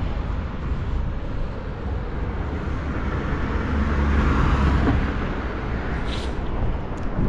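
Road vehicle passing on the street, its engine and tyre noise swelling to a peak about four to five seconds in and then fading, over a steady outdoor rumble.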